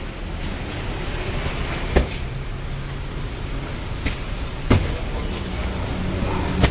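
Wrapped bundles of books knocking against the truck bed as they are lifted and handed out during unloading: four sharp thuds, over a steady low rumble.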